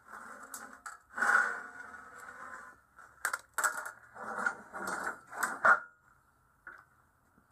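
A long steel angle being laid on a steel workbench and shifted into place: a scrape of metal on metal, then a series of short knocks and clanks, stopping about six seconds in.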